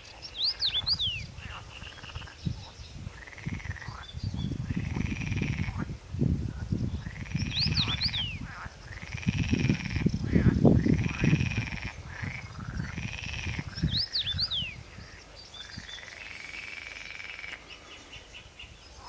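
Male common rosefinch singing its short whistled phrase of quick up-and-down slurs three times, about six seconds apart. A chorus of frogs croaks throughout, in repeated calls of about a second each and a low pulsing that is loudest about ten seconds in.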